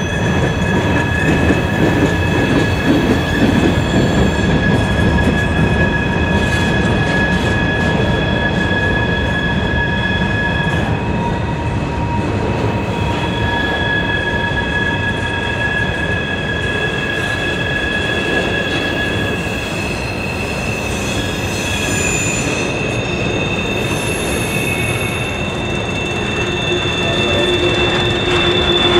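Freight train cars rolling past on a curve, their steel wheels squealing against the rail in several steady high tones over the rumble of the train. The squeal drops out briefly around the middle and returns.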